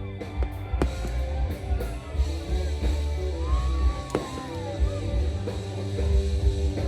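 Loud music with a heavy bass line and singing, with two sharp firework bangs cutting through, about a second in and about four seconds in.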